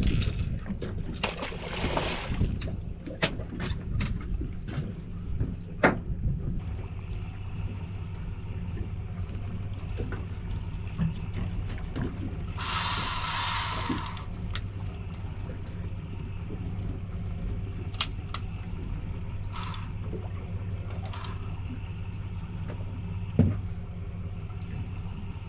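Outboard motor idling steadily, a low even hum, with scattered knocks and clicks in the first few seconds and a brief hiss about halfway through.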